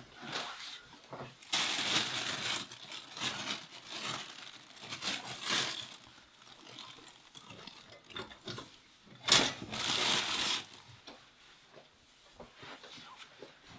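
Plastic bread bag crinkling and rustling in several bursts as it is handled, with a sharp click about nine seconds in and more crinkling just after.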